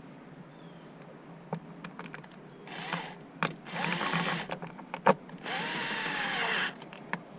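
Cordless drill/driver running in three short bursts, the last about a second long, its motor whine bending up and down as it drives screws. Sharp clicks and knocks come between the bursts.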